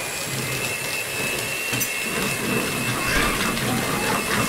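Electric hand mixer running with its beaters whirring through muffin batter as milk and melted butter are beaten in. There is a steady high motor whine.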